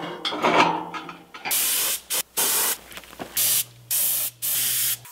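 Background music for the first second and a half, then a paint spray gun spraying in about six short hissing bursts, each under a second.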